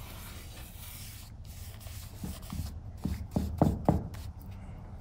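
A paintbrush rubbing and swishing across the bare wood of a cutting board, brushing on a thin, watery milk-paint stain. A few light knocks come between about two and four seconds in.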